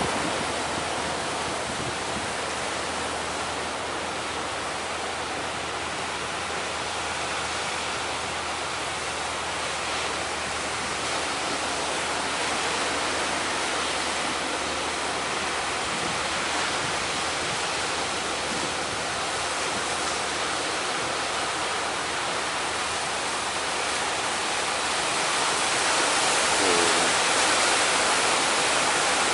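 Steady roar of heavy sea surf in strong wind, swelling a little louder near the end.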